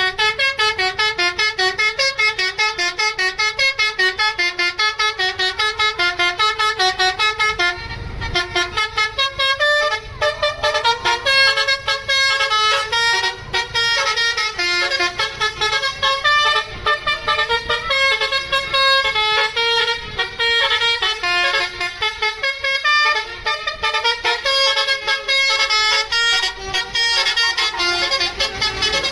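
Basuri 'telolet' multi-tone bus horn playing a tune in quick, stuttering pulses of changing pitch, several pulses a second, with a short break about eight seconds in.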